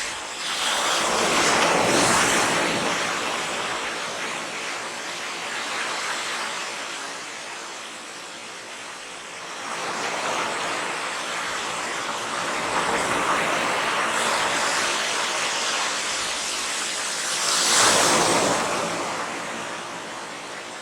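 Waves washing onto the shore in slow swells, loudest about two seconds in and again near the end.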